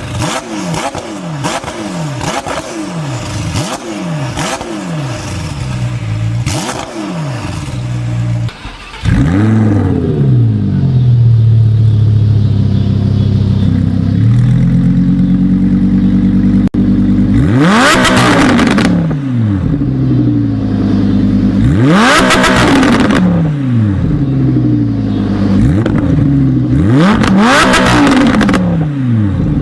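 A loud engine with a loud exhaust, blipped about a dozen times in quick succession, with pops and crackles between the blips. After a sudden jump in loudness, an engine idles steadily and is then revved hard three times, crackling at each peak and falling back to idle.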